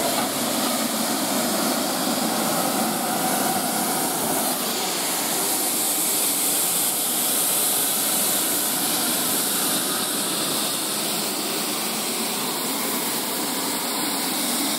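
GWR Castle-class steam locomotive No 4079 Pendennis Castle standing in steam, with a loud, steady hiss of escaping steam.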